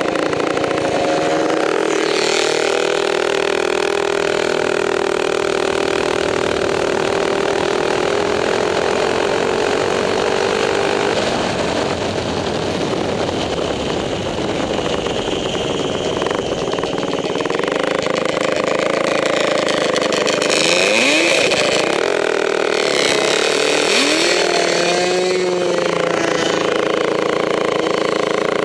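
Go-kart's two-stroke 440 snowmobile engine running under way, holding a steady pitch at first; in the second half its pitch wavers, with a few quick rises and falls in revs.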